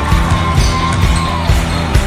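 Basketball bouncing on a hard court floor, a few sharp knocks at uneven intervals, over background music.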